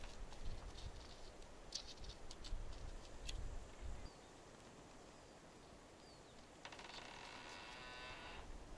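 Winter forest ambience: a low rumble with scattered clicks for the first four seconds, then faint short bird chirps, and a pitched trill of about two seconds near the end.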